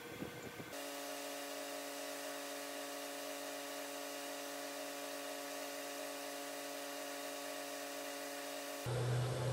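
Laser cutting machine running as it cuts gaskets: a steady hum of several tones that starts abruptly about a second in. Near the end it gives way abruptly to a louder, lower hum.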